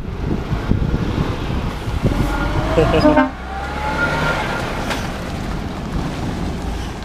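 Lorry tractor unit's diesel engine running as it drives forward, with steady road and cab noise. Brief high tones about two to three seconds in, followed by a slowly rising tone.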